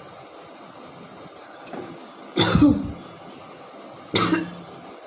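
A woman hawking, with harsh, forceful throat-clearing coughs to bring up phlegm, twice: a longer one about two and a half seconds in and a shorter one about four seconds in.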